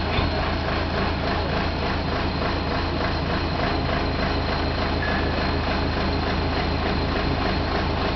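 Auger drill rig's engine running steadily with a fast, even pulse.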